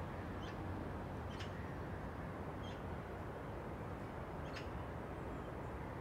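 Small birds giving four short, high chirps spread through a few seconds, over a steady low noise.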